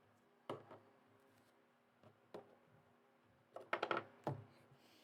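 Plastic Lego pieces clicking and clattering faintly as they are handled and searched through: a few scattered short clicks, with a quick cluster of them near the end.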